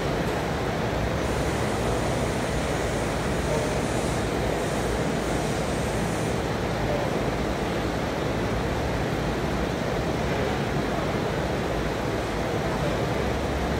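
Steady rushing background noise: an even hiss that holds at one level, with no distinct knocks or voices standing out.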